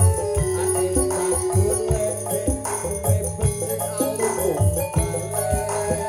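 Live campursari music from a Javanese gamelan ensemble playing a steady groove, with hand-drum strokes about two or three times a second and a bright jingling shimmer on top.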